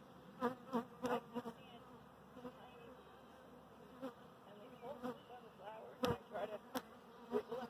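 Honey bee swarm buzzing as it crawls into a hive box: a faint steady hum with individual bees buzzing briefly past the microphone again and again. A couple of sharp clicks come about six and seven seconds in.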